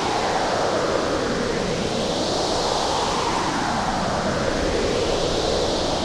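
Hurricane-force wind sound effect: a steady rushing roar with whooshing gusts that swell and fade every two to three seconds.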